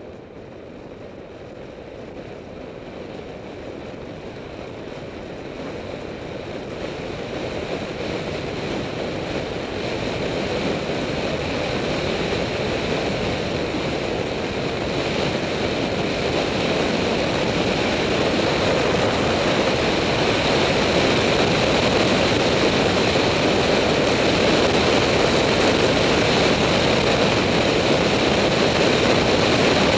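Wind rushing over the microphone of a handlebar-mounted camera on a bicycle descending a hill, growing steadily louder as the bike picks up speed.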